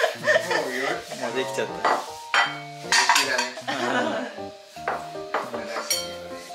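White ceramic plates clinking against each other and being set down on a wooden table: several sharp clinks, over light background music.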